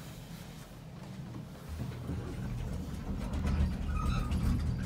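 A 1969 Otis two-speed AC overhead traction elevator car travelling: a low rumble inside the car that grows louder about two seconds in.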